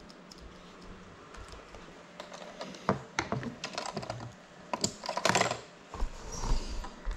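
Handling noise from gear being moved and set down on a hard tabletop right beside the landed FPV drone's camera: irregular clicks, taps and knocks starting about two seconds in, busiest around the middle. The drone's motors are off.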